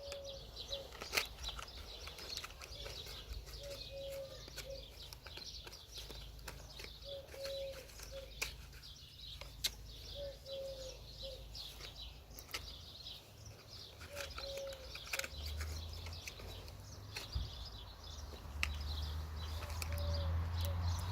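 Sharp moderated cracks from a suppressed .22LR rifle (CZ452) firing subsonic rounds, a few loud ones several seconds apart, over garden birdsong. A dove is cooing in short two- and three-note phrases throughout, and a low hum rises near the end.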